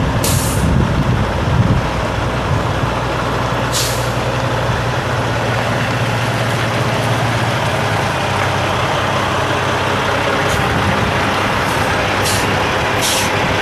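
2004 Peterbilt 378 semi tractor with a Caterpillar C15 diesel, the engine running steadily as it drives slowly, with several short air-brake hisses, about six, most of them in the last few seconds.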